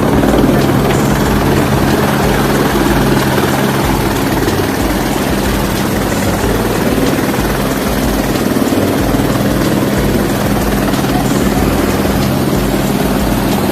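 Helicopter running, its engine and rotor making a loud, steady drone that neither rises nor falls.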